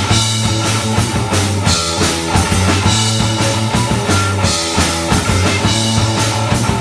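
Live rock band playing loudly: distorted electric guitar, electric bass and a drum kit, with a driving steady beat.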